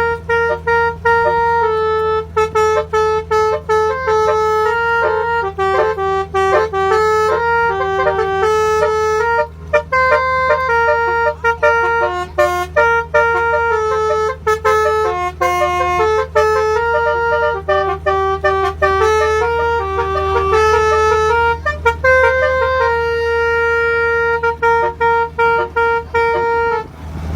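Basuri telolet horn playing a quick melody of changing notes through its DAV sound module, with brief gaps between phrases, over a steady low hum.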